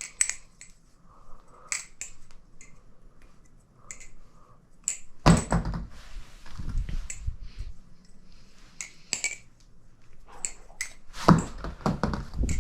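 LDY Corvus balisong trainer being flipped: its aluminium handles and zen pins clicking and clacking in quick, irregular strikes. There are louder, deeper knocks about five seconds in and again about eleven seconds in.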